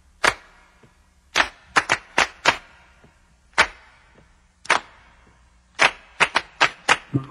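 Hand claps, single sharp claps at uneven intervals of about a second, quickening into a faster run of claps near the end.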